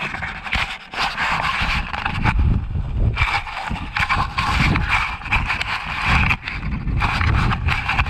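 A cat nosing right up against the camera's microphone: close sniffing and rubbing, with rustling and rumbling contact noise in a rapid string of short bursts.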